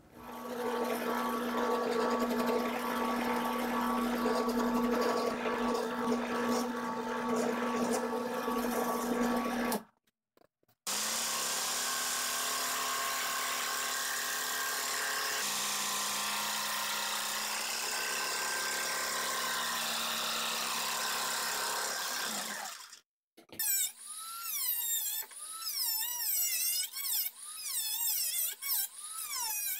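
Three power-tool passages separated by brief breaks. First an electric tool runs steadily for about ten seconds. Then a Black & Decker jigsaw cuts polycarbonate sheet, its pitch dropping partway through, and near the end a rotary tool with a cutoff wheel cuts a threaded steel rod with a high whine that wavers under load.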